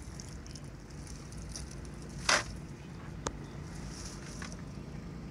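A cast net being gathered and handled on a boat's bow deck: light rustling and crackling of the mesh over a steady low rumble of wind and water. About two seconds in comes a short, loud knock, and a second later a sharp click.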